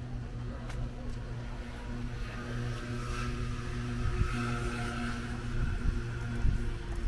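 A motor vehicle's engine running with a steady, even hum, under general street noise.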